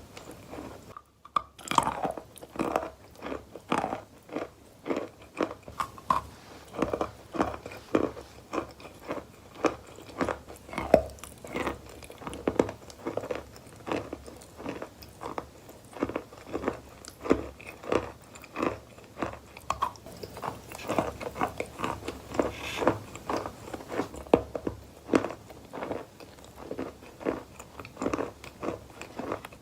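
Wet, sandy, grainy material crunching as it is crushed, in a steady run of short gritty crunches about two to three a second, with a brief break about a second in.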